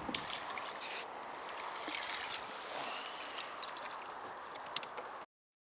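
Rustling and crackling handling noises, with waterproof clothing and landing-net mesh being moved, over a steady hiss; it cuts off suddenly near the end.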